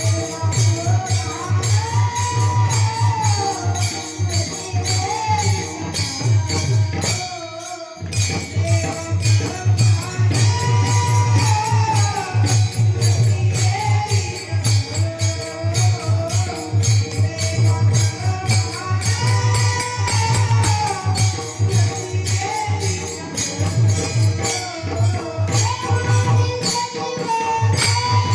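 Devotional bhajan singing: a solo voice carries a wavering melody over steady, rapid strikes of small hand cymbals and a low drum beat, with a brief break about seven seconds in.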